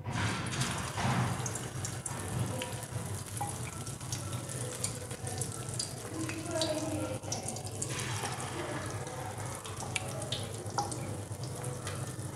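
Batter-coated chicken drumsticks sizzling as they are lowered into hot oil, the sizzle starting suddenly as the first piece goes in and running on as a dense hiss with scattered crackles and pops.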